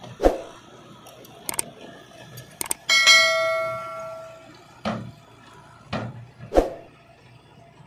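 Metal clanks and knocks, about six in all, one of them about three seconds in ringing like a bell and fading over a second and a half.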